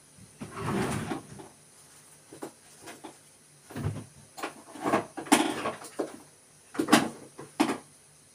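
Someone rummaging through loose items while looking for a piece of wire: a string of irregular knocks, clatters and rustles, the loudest about five and seven seconds in.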